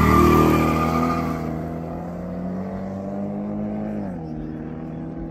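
Drag-racing cars, a black Chevrolet Malibu among them, launching and pulling away: a tyre squeal at the start, then engines revving higher as they draw off and fade. The pitch drops sharply about four seconds in at a gear shift.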